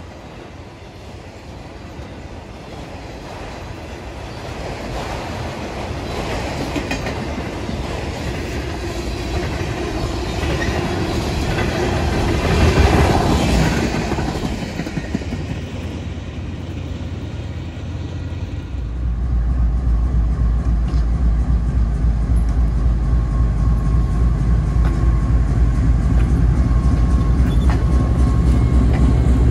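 Freight cars rolling past on the rails: wheel rumble and clatter that build to a peak about halfway through, then ease off. About two-thirds of the way in it gives way suddenly to a GE AC44C6M diesel-electric locomotive's engine running close by, a loud, steady low rumble.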